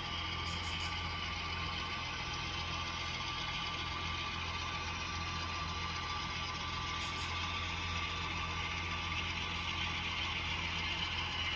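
Model train locomotive running along the layout track, with a steady engine-like hum.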